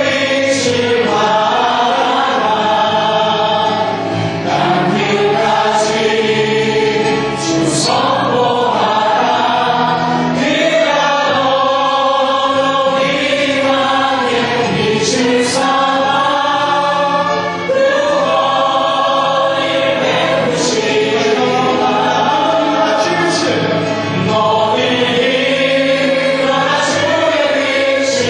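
Church praise team of men and women singing a Korean worship song together through handheld microphones, in long held notes.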